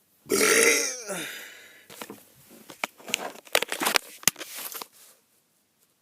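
A man's forced burp about half a second in, a short loud burp falling in pitch, followed by softer breathy noise and a run of small sharp clicks.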